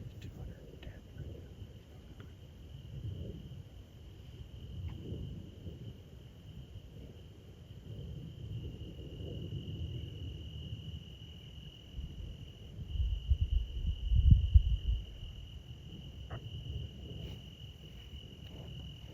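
A cricket-like insect trilling on one steady high note throughout. Low rumbling surges come and go beneath it, loudest about two-thirds of the way through.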